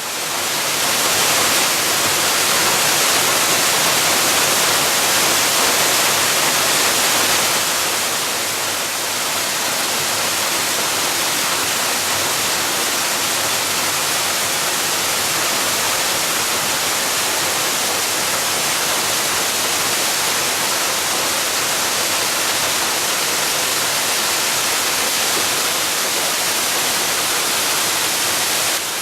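Waterfall rushing, a steady loud roar of falling water that eases slightly after about eight seconds.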